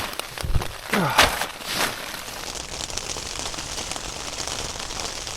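Torrential rain pattering steadily on a tent's flysheet, an even hiss, with a few louder rustles in the first two seconds.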